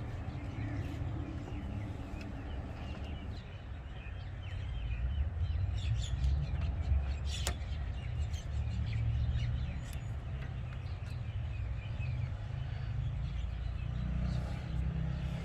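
A steady low rumble with faint bird chirps over it and a single sharp click midway.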